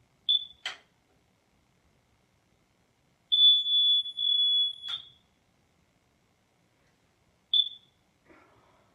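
DuPont AngelEye light-socket smoke alarm sounding a single high-pitched tone in uneven bursts: a short beep, a long tone of nearly two seconds, then another short beep. It goes off when the light it is screwed into is switched off. Sharp clicks come shortly after the first beep and just as the long tone cuts off.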